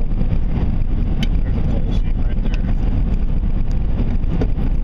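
Steady low rumble of a vehicle in motion, with a handful of short sharp knocks or rattles scattered through it.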